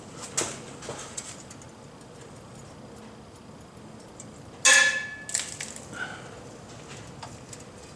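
Steel hand tools knocking against a rusted exhaust nut: a few light clicks, then one loud metallic clank a little under five seconds in that rings briefly, followed by a few smaller knocks.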